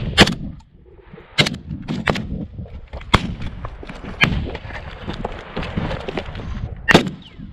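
Single rifle shots in a live-fire assault drill: about five sharp, loud cracks at irregular intervals, the last near the end, with a steady rushing noise between them.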